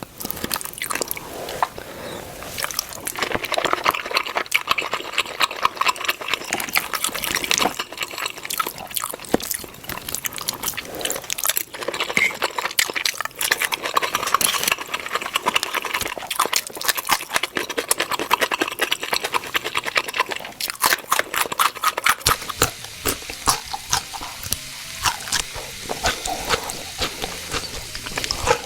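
Steak cooking with its fat and juices sizzling: dense, rapid crackling and spitting.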